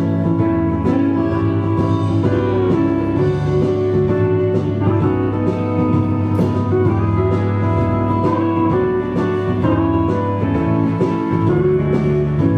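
Instrumental interlude of an upbeat gospel song, a plucked guitar-like accompaniment with a steady beat, between sung verses.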